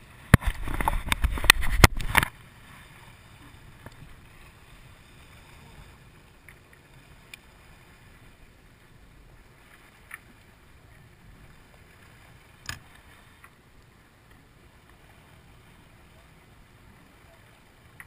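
Handling noise on the camera: loud, irregular bumping and rubbing for about two seconds near the start. After that comes quiet ambience of a small boat drifting at sea, with a few faint clicks.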